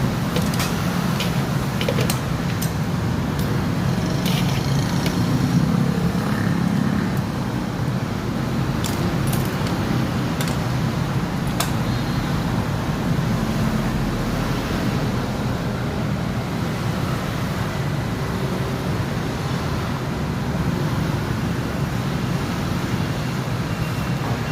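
Steady rumble of road traffic, with a few light clicks and taps in the first half.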